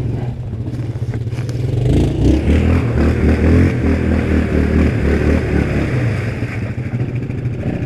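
Yamaha Grizzly ATV's single-cylinder engine revving hard while the quad is stuck in deep mud, trying to drive out. The revs climb about two seconds in and stay high.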